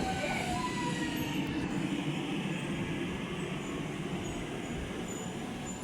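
CPTM Série 2070 electric multiple unit slowing into a station: its motor whine falls in pitch and dies out about half a second in. A steady rumble follows and slowly fades, with a few faint high squeaks near the end.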